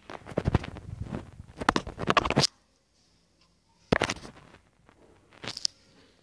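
Handling noise: fingers rubbing and scraping against the handheld recording phone as it is moved around. There is a dense scratchy stretch over the first two and a half seconds, then two short scrapes later on.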